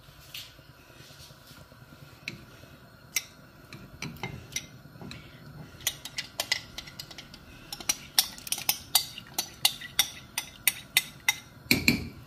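A spoon stirring soup in a pot, clinking and tapping against the pot's sides. The clinks are scattered at first and come quick and close together from about eight seconds in, over a faint steady hum.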